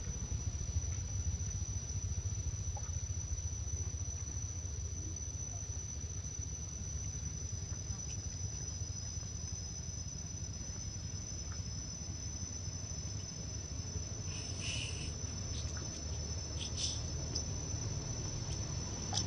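Insects giving a steady, high-pitched drone, joined by a second, slightly lower steady tone about seven seconds in, over a low rumble. A few brief high chirps come near the end.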